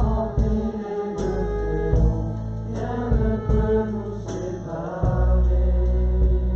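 Music with singing voices over a heavy, sustained bass, with regular sharp beats.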